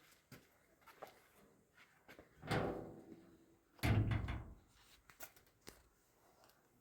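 Two loud bangs about a second and a half apart, each trailing off over half a second, with a few lighter knocks and clicks around them.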